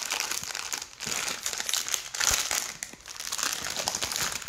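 Plastic blind bag crinkling in a child's hands as he works at opening it, on and off with short pauses about one and three seconds in.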